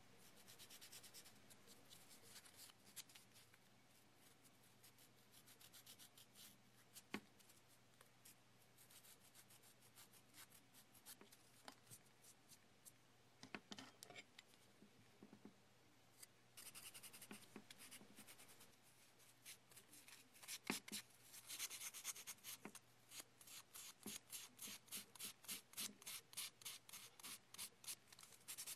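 Faint scraping of dried stone-powder clay: a hobby knife shaving and paring the hard clay in short strokes, then a run of quick rasping strokes in the second half.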